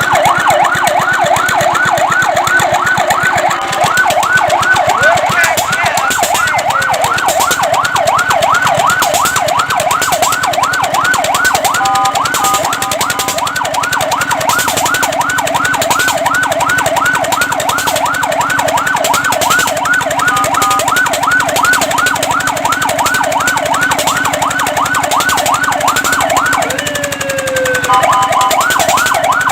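Fire truck's electronic siren in a fast yelp, its pitch sweeping up and down several times a second. Twice it breaks briefly into steady held tones, and near the end it glides down once before the yelp picks up again.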